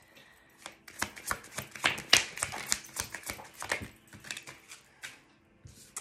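A deck of message cards being shuffled by hand: a quick run of card flicks for about three seconds, then a few scattered taps near the end.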